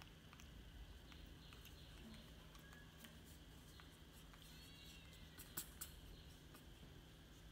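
Near silence: quiet room tone with a faint steady hum and a few small clicks, two of them sharper, close together about five and a half seconds in.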